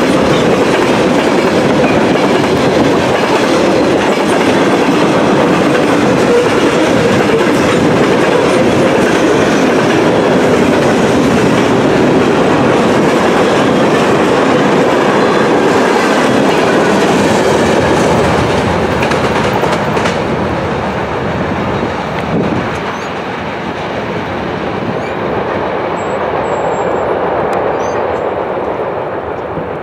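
Mixed freight train rolling past close by: a steady rumble with the wheels clacking over rail joints. About two-thirds of the way through it grows quieter and duller, the train now heard from farther off.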